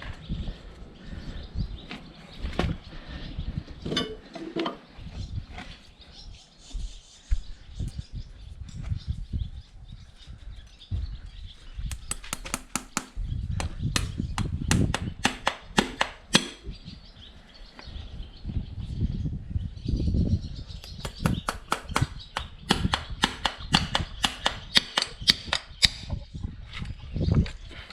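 A farrier's hammer striking metal: scattered knocks, then quick runs of sharp, evenly spaced taps, about three to four a second.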